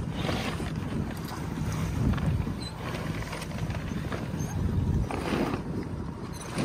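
Wind noise on the microphone, with a sailboat's mainsail cloth rustling and flapping as it is hauled up the mast by hand on the halyard. The sound swells a few times as the sail shakes.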